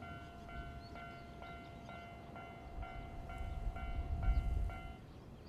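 Railway level-crossing alarm ringing with a pitched ding about twice a second, which stops suddenly about five seconds in as the train clears the crossing. Underneath, a low rumble from the departing freight train and wind.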